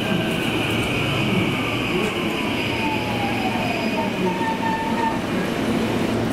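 Electric train pulling into a station and slowing. Its motor whine falls steadily in pitch over about four seconds, followed by a short squeal, over the steady hiss of a heavy downpour.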